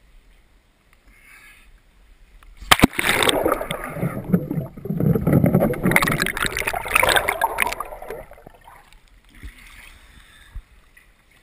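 Water splashing and churning right at the camera for about five seconds, opening with a sharp knock.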